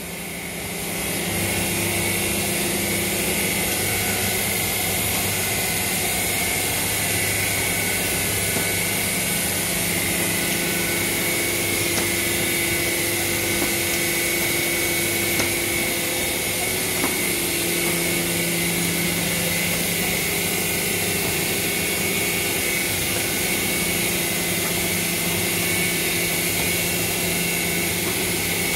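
Wohlenberg Golf 18 sheet-gathering machine running at steady speed: a constant mechanical hum with a few held tones over an even hiss. It fades in over the first second.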